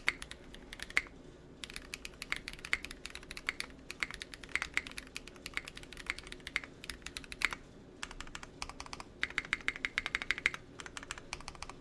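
Typing on a Mekanisk Klippe 60% mechanical keyboard with tactile Holy Panda switches and GMK keycaps: quick runs of clacking keystrokes broken by short pauses.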